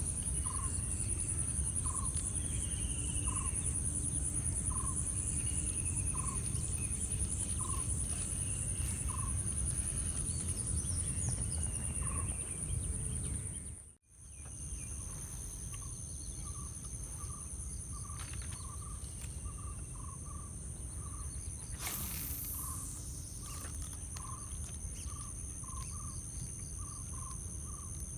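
Insects shrilling steadily at a high pitch while some animal repeats a short call about twice a second, over a low outdoor rumble. Midway the sound drops out for a moment, and afterwards the short calls come faster.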